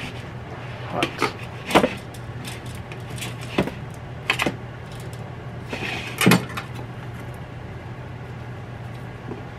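Kitchen knife cutting through a crisp toasted lavash wrap in a plastic bowl: a handful of scattered crunches and knocks against the bowl, the loudest about six seconds in, over a low steady hum.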